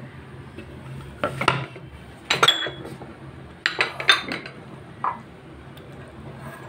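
Glass bowls and kitchen utensils clinking and knocking on a countertop as things are set down and moved: four clusters of sharp clinks about a second apart, two of them leaving a brief high ring of glass.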